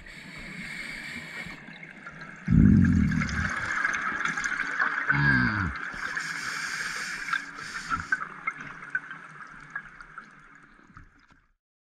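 Underwater sound of a diver's exhaled air bubbles gurgling in two loud bursts, about two and a half and five seconds in, over a steady high hiss with scattered small clicks.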